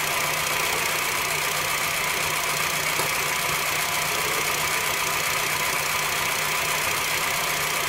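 2013 Honda Fit's four-cylinder engine idling steadily under the open hood while it warms up to purge air from the cooling system after a coolant drain and fill.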